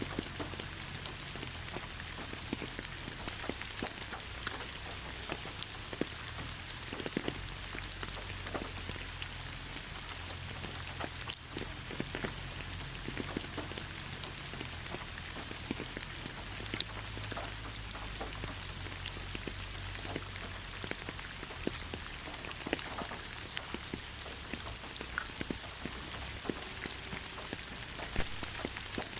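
Steady rainfall: an even hiss with many individual drops ticking sharply through it.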